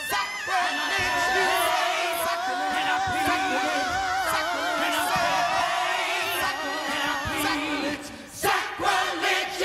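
Gospel choir singing in harmony with the band, holding long notes with a wide vibrato. About eight seconds in the singing drops away and a few loud, sharp hits sound as the song ends.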